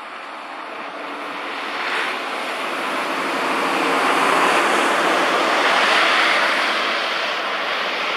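Walk-behind snowblower running, a steady rushing noise that grows louder through the first half and eases slightly near the end.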